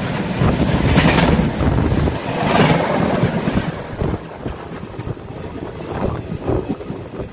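Indian Railways passenger train running, heard from inside the coach by an open window: wheel-and-track rumble with wind rushing in, surging twice. It eases off about four seconds in as the train slows for a halt, and a couple of short knocks come near the end.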